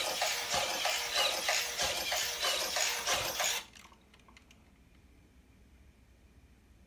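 Robosen Optimus Prime robot's servo motors whirring with rapid clicking as it steps and moves. The sound stops abruptly about three and a half seconds in, followed by a few faint clicks.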